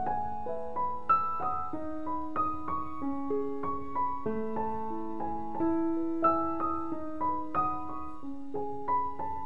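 Background piano music: a slow melody of single struck notes over held lower notes, about two to three notes a second.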